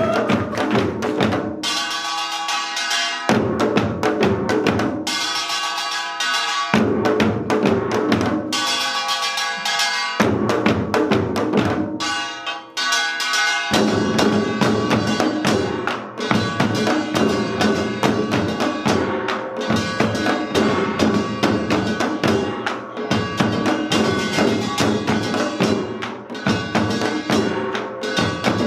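Samul nori percussion ensemble playing: janggu hourglass drums and buk barrel drums struck in a fast rhythm under the ringing of kkwaenggwari and jing gongs. For the first half the playing comes in loud phrases a few seconds long with short lulls between, then it runs on without a break from about halfway through.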